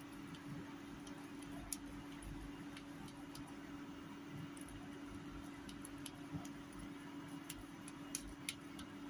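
A handful of faint, sharp clicks, scattered irregularly, as a knife scores soft barfi and taps the bottom and rim of a steel tray. A steady low hum runs underneath.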